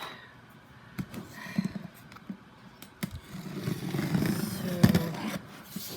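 Packaging being handled: scattered light clicks and knocks, then a stretch of rustling with a sharper knock about five seconds in.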